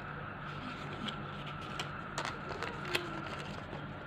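Light, irregular clicks and rustles of hands handling a small fabric pouch with a metal zipper, the zipper teeth and pulls clicking, over a steady faint hum.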